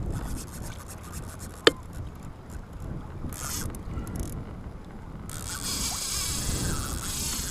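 Rubbing and knocking against a kayak, with one sharp click about a second and a half in. From about five seconds in there is a rushing hiss of water.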